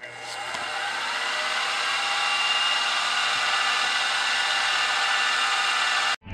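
Grizzly G0704 milling machine spindle starting up and running steadily while a center drill spots a hole in the metal base plate. The sound builds over the first second and cuts off suddenly near the end.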